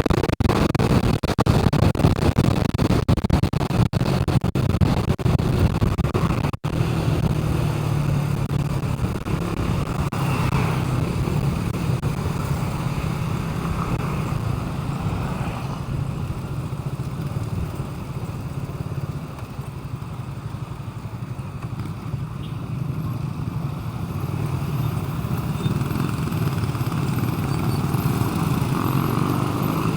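A vehicle engine running steadily, with a few brief dropouts in the sound during the first seven seconds.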